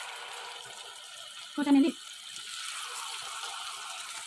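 Chicken kebab pieces deep-frying in hot oil in a wok, a steady sizzle. A brief voice cuts in for a moment about a second and a half in.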